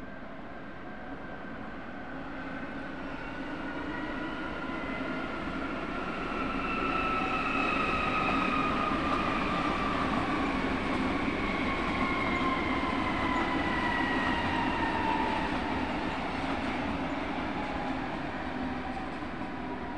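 Munich S-Bahn class 423 electric multiple unit passing, its motors whining in two tones that slowly fall in pitch over the rumble of the wheels on the rails. The sound swells to its loudest in the middle and fades a little near the end.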